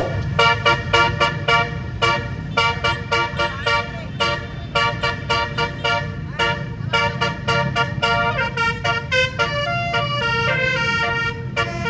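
A bus's multi-note basuri telolet air horn playing a tune in short, separate blasts, the notes coming quicker and running together from about two-thirds of the way in. A low engine rumble runs underneath.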